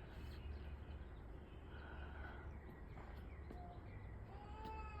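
Faint bird chirps and calls over a steady low outdoor rumble, with a short call about two seconds in and a longer downward-curving call near the end.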